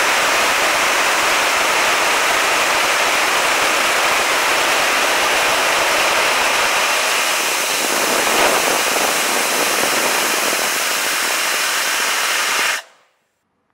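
Liquid carbon dioxide from four linked 3-litre fire extinguishers blasting out of a home-made rocket nozzle: a loud, steady roar of rushing gas that cuts off abruptly about a second before the end.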